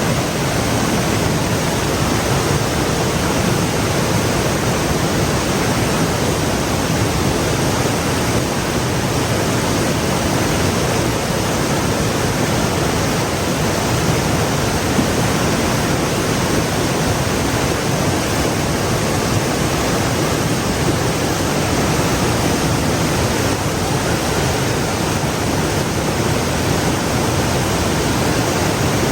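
Stream water flowing and splashing, a steady, even rush with no let-up.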